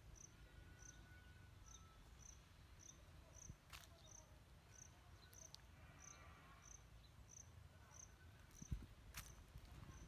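Faint insect chirping: one short high note repeated about twice a second, over a low steady rumble.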